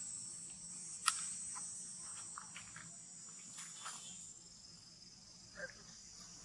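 Steady, high-pitched chirring of insects, with a sharp click about a second in and a few faint short sounds scattered through it.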